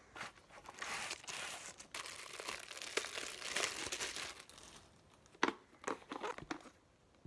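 Clear plastic bag crinkling and rustling as a white plastic sushi bazooka is unwrapped, followed near the end by a few short knocks of the hard plastic parts being handled.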